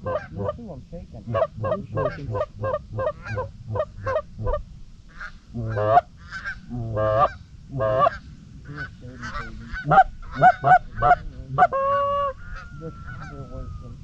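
Canada goose honks and clucks in a fast, even run of about three a second, then slower, longer honks, ending in a long drawn note near the end.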